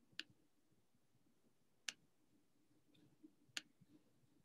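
Three faint, sharp clicks, evenly spaced a little under two seconds apart, over near silence.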